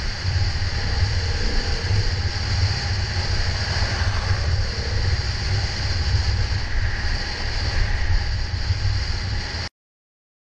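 Enduro motorcycle riding, its engine running steadily under a heavy, fluctuating low rumble. The sound cuts off suddenly near the end.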